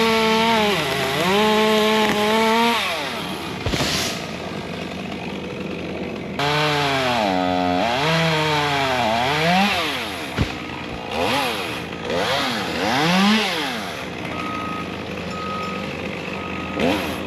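Two-stroke chainsaw revving up and down in repeated throttle bursts, with a couple of sharp knocks. Near the end, three evenly spaced beeps of a vehicle's reversing alarm sound over a steady engine hum.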